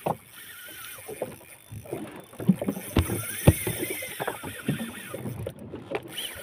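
Background noise aboard a small fishing boat, with two sharp knocks about three seconds in, half a second apart.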